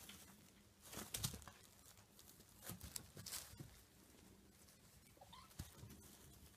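Kittens play-fighting: faint scuffling of paws and rustling of a loose sheet, with louder scuffles about a second in and again around three seconds in.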